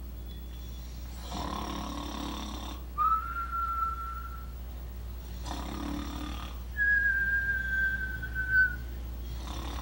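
Comic cartoon-style snoring from a sleeping marionette: a rasping snore followed by a high steady whistle, twice over. The second whistle is longer and drops slightly in pitch.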